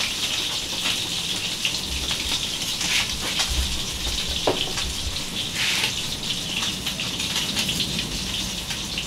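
Fish frying in a pan of hot oil, a steady crackling sizzle. A few light knife scrapes and taps on a wooden chopping board come through over it.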